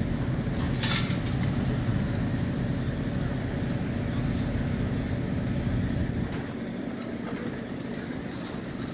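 Steady low rumble of heavy engines running, easing off a little about six seconds in, with one brief sharp clatter about a second in.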